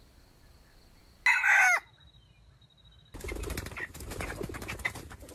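One short crow from a red junglefowl (wild chicken) rooster, about half a second long and ending on a falling note. About three seconds in, a rough rustling noise starts suddenly and keeps on.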